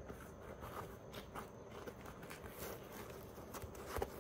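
Faint handling of a leather boot as a reshaped toe counter is worked back into it by hand: light rubbing and small taps, with one sharper knock near the end.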